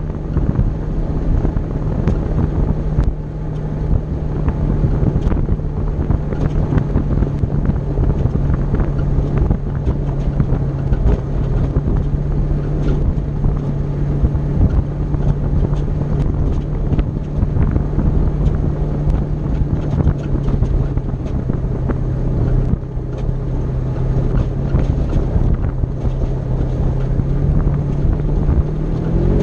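Polaris RZR side-by-side cruising on a gravel road: its engine drone holds one steady pitch that slowly sinks, then climbs sharply near the end as it speeds up. Wind buffets the microphone and small knocks come from the rough gravel.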